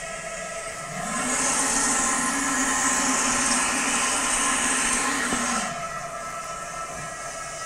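Steady test sound from a sound source inside a bucket: several steady tones over a hiss, muffled by a sample of Vibrex 6 mm foil-faced foamed-rubber insulation laid over the opening. About a second in it becomes louder and brighter as the bucket is uncovered, then drops back to muffled near the six-second mark when another insulation sample covers it.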